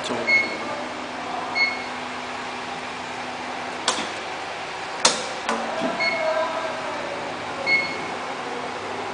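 Horizontal ice-lolly flow-wrapping machine running: a steady mechanical hum with a short, high chirp roughly every one and a half seconds, and two sharp clicks near the middle.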